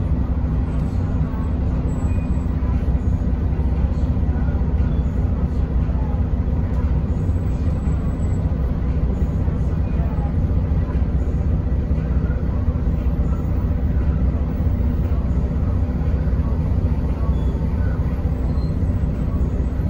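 Mercedes-Benz O405NH city bus heard from inside the passenger cabin while driving: a steady low engine and drivetrain drone with road noise, holding an even level throughout.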